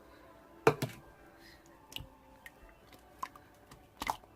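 Scattered light clicks and taps from small objects being handled, the loudest a sharp double tap under a second in.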